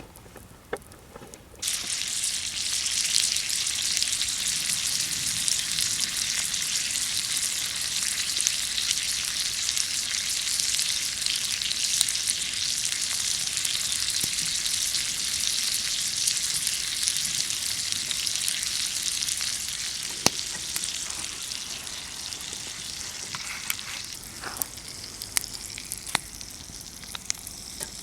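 Loud sizzling hiss at the campfire that starts suddenly about two seconds in, holds steady, then dies down over the last several seconds, with scattered sharp pops.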